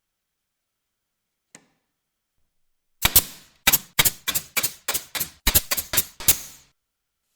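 A faint single click, then a quick run of about a dozen loud, sharp knocks, about three a second, lasting some three and a half seconds.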